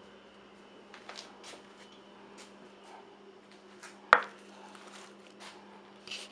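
Quiet room tone with a steady low hum and a few faint clicks, broken by one sharp knock about four seconds in.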